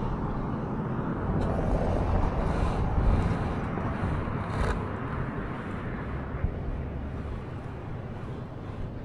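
Steady low rumbling noise that slowly fades, with no clear tones or rhythm.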